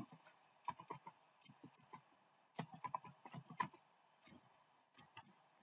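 Faint computer keyboard keystrokes: a password typed in irregular runs of quick key clicks, the busiest run in the middle.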